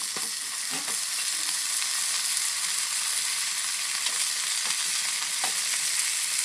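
Pork steak frying over a small twig-stove fire: a steady sizzle with a few faint pops.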